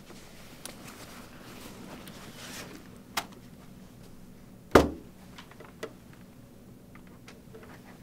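Handling noises at an office desk: a soft rustle, a sharp click, then one heavy thump of something set down on the wooden desktop about halfway through, followed by a few lighter knocks and clicks.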